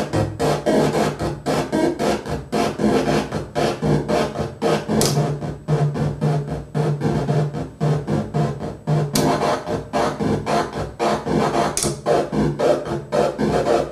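Hand-built circuit-bent noise machine pulsing in a fast glitchy rhythm, about four noisy beats a second over a low steady drone, with three brief high sweeps.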